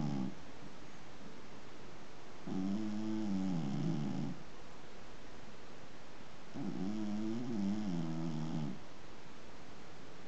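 A sleeping domestic cat snoring. The tail end of one snore comes at the very start, then two full snores follow, each about two seconds long and about four seconds apart.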